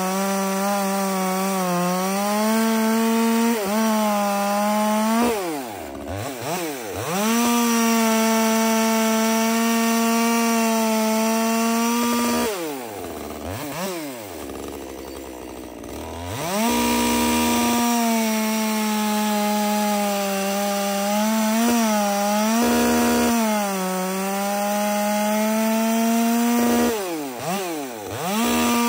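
Top-handle chainsaw running at full throttle as it cuts through logs, with a steady high pitch. Three times the throttle drops off between cuts and the saw winds back up, most briefly about 6 s in and longest around the middle.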